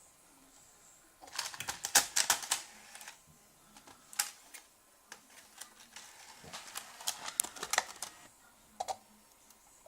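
Irregular mechanical clicking and ticking from a Blu-ray player's disc drive that fails to spin the disc. There is a quick run of clicks about a second in, a single sharp click around four seconds, and another run of clicks around seven seconds.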